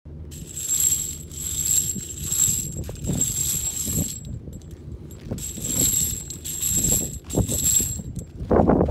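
Wire-cage nut gatherer rolling over gravelly dirt, the spent brass cartridge cases inside jingling and rattling against the wires with a bright metallic ring. It goes in two stretches, with a short lull about halfway.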